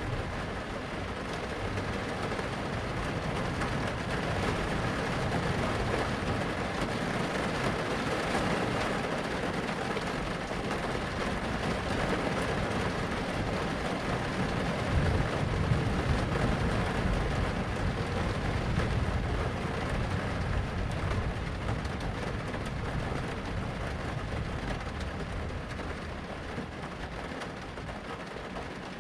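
Steady rain with low rolling thunder; the rumble swells about halfway through, then eases off.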